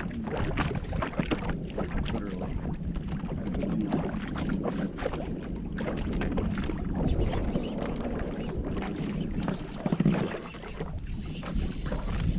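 Small waves lapping and slapping irregularly against the hull of a fishing boat, with wind buffeting the microphone.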